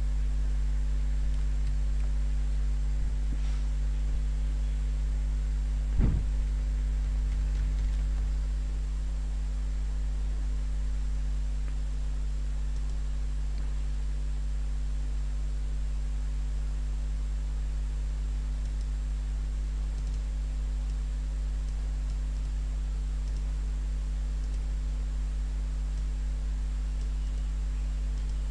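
Steady electrical hum with a few fixed tones above it and faint hiss, broken by a single short click about six seconds in.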